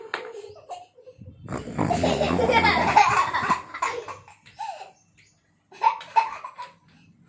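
Children laughing hard in one loud outburst of about three seconds, with a short burst of laughter again near the end.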